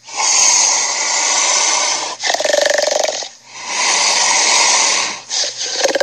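Cartoon tyrannosaur roar sound effects played through a device's speaker: a long rasping roar, a shorter lower-pitched growl about two seconds in, a second long roar, then a few short snarls near the end.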